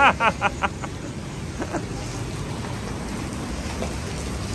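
A woman laughs in a quick run of fading bursts, then a steady wash of noise from traffic and water on a flooded street.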